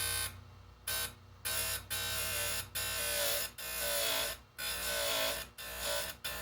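Oregon 410-120 bench chain grinder with an abrasive wheel grinding a chainsaw cutter tooth, in a quick series of passes about a second each. The grinder motor hums steadily underneath.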